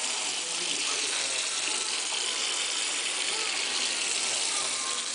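Kitchen tap running into a stainless steel sink while a pot of boiled ditalini pasta and its cooking water is tipped out into a plastic colander, making a steady, even hiss of water.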